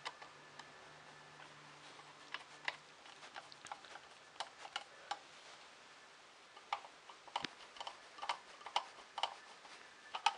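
Irregular light clicks and taps of small screws and plastic printer parts being handled during hand assembly of a 3D printer, in two flurries with a short lull in the middle.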